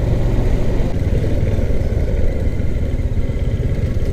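Motorcycle engine running steadily at low speed on a rutted dirt track, a continuous low rumble with no changes in pace.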